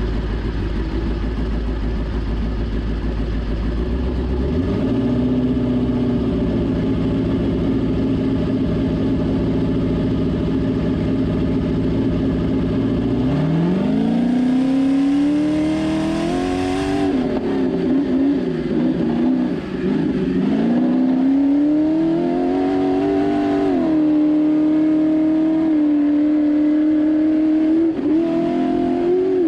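Ultra4 Class 4400 off-road race car's engine heard from on board, running steadily at low revs at first and stepping up slightly a few seconds in. About halfway through it revs up hard, its pitch rising and falling several times with throttle and gear changes as the car drives off.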